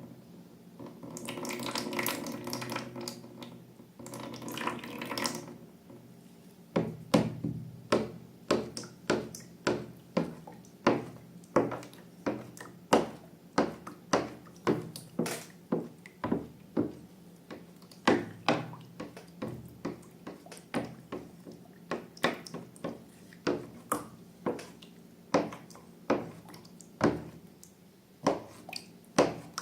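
Liquid pouring into a bowl in two short pours. Then slime being mixed by hand with a utensil that clicks sharply against the bowl, about one to two clicks a second.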